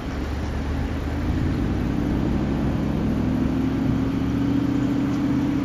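A steady mechanical hum with a low drone, growing a little louder after about a second and stopping near the end.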